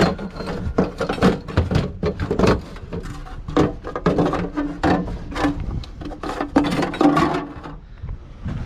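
Aluminum scrap being tossed and stacked onto a trailer: a long run of irregular metallic clanks and knocks, many strikes in quick succession.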